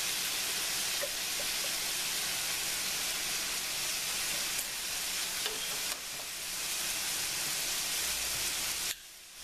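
Sliced bell peppers and onions sizzling steadily in a hot skillet, with minced garlic just added on top. The sizzle dips briefly near the end.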